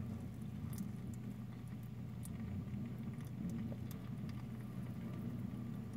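Faint, sparse crackling and fizzing of sour candy powder bubbling on hot, freshly microwaved melted Mike and Ike candy, over a steady low hum.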